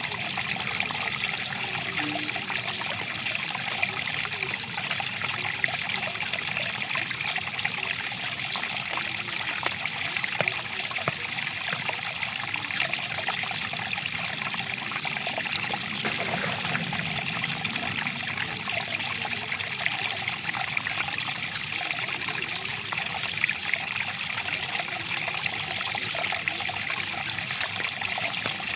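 Water flowing and trickling over stones in a small stream, a steady bubbling babble with many small splashes.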